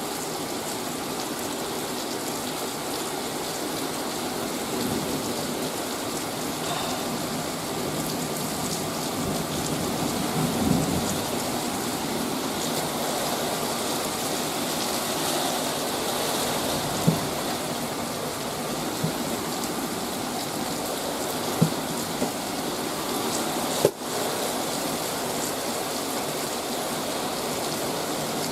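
Heavy thunderstorm rain pouring steadily, with a low rumble of thunder about ten seconds in. A few sharp clicks come later on.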